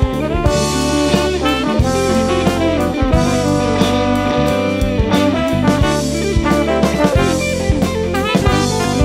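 Small jazz band playing: tenor saxophone and trombone holding melody notes over a drum kit, with electric guitar.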